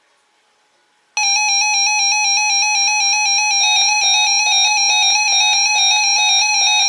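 Weather alert radio receiver sounding its electronic alert tone for a weekly test: a loud, shrill beeping tone in a fast repeating pattern that starts suddenly about a second in.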